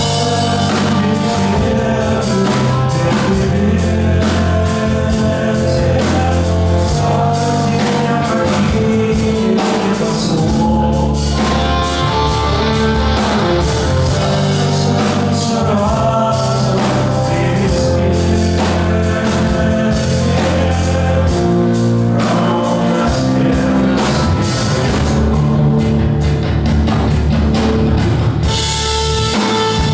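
Rock song with singing over drums and guitar, played loud and steady.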